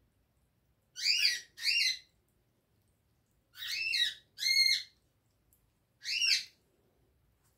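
An animal's short, high-pitched calls, each rising then falling: two quick pairs, then one more near the end.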